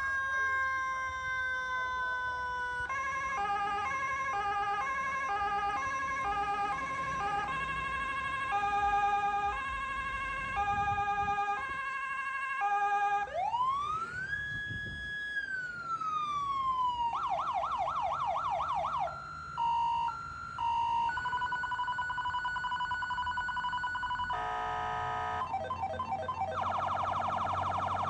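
Electronic emergency-vehicle siren cycling through its tone modes. It moves from a slow falling tone to stepped alternating notes, then a single rising and falling wail about halfway through, a fast yelp, a steady tone, and a rapid warble near the end.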